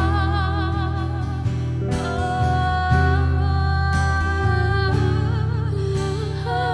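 Christian pop ballad, instrumental passage: sustained chords and held melody notes over a deep, steady bass, with the chords changing every second or two.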